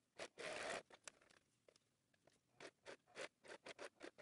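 Muslin fabric rustling and scratching as it is handled and pulled at the sewing machine: one longer rustle near the start, then a quick run of short scratchy strokes.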